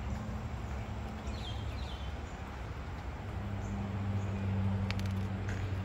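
Outdoor ambience: a steady low hum under a few faint, short, high bird chirps.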